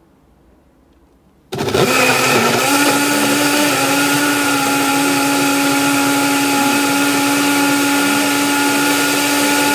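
Personal bottle blender's motor switching on suddenly about one and a half seconds in and running at a steady pitch while the bottle is held pressed down, blending leafy greens, kiwi and liquid into a smoothie.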